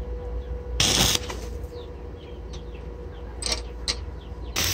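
Stick (MMA) arc welding a bolt onto the underside of a steel air compressor tank: a short burst of arc crackle about a second in, two light taps later, then the arc struck again and held near the end, over a steady low hum.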